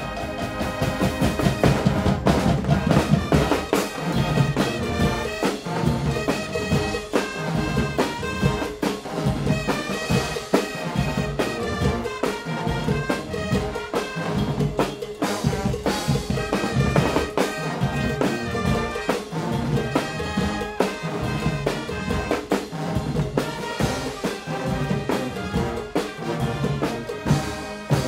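Guggenmusik band playing live: massed trumpets and trombones with sousaphones, driven by a drum kit and percussion with regular beats throughout. The full band comes in loud right at the start.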